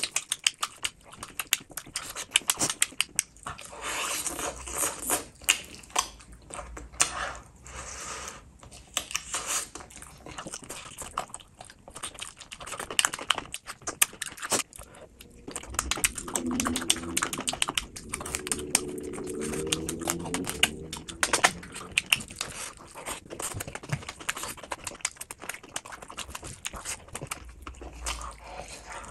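Close-miked wet eating sounds: chewing, lip smacking and slurping of chicken and gravy-soaked rice eaten by hand, with many sharp mouth clicks. A few seconds past the middle comes a drawn-out hum.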